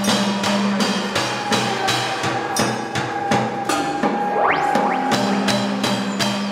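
Robotic found-object percussion installation playing: mechanical beaters knock on metal bowls, pans and other found objects in a steady rhythm, over sustained low and mid drone tones. A quick rising pitch glide sweeps up about four and a half seconds in.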